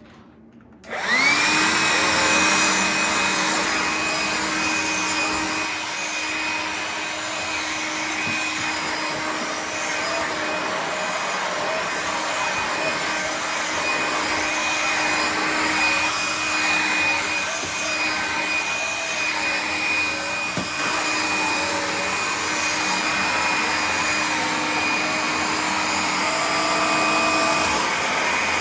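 Hoover Linx cordless stick vacuum's motor switched on about a second in, spinning up with a rising whine, then running with a steady high whine and rush of air. The owner takes the motor to be failing: it sounds off and smells like it is burning.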